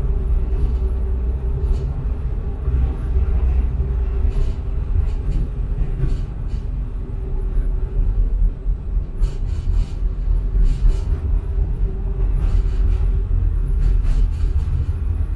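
Tram running along its rails, heard from inside the car: a steady low rumble with a faint hum and scattered clicks from the wheels on the track.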